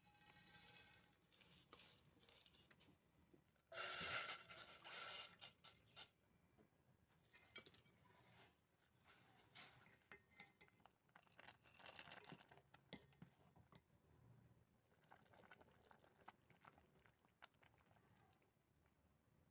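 Faint kitchen handling sounds while cooking: irregular clicks and scrapes of utensils and cookware, with a louder noisy stretch about four seconds in lasting a couple of seconds.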